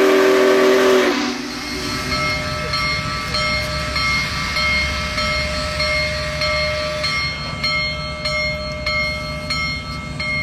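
Union Pacific Big Boy No. 4014 steam locomotive's whistle blowing a steady chord that cuts off about a second in. The locomotive then rolls past with a low rumble, under steady ringing tones that break into regular strikes, its bell ringing.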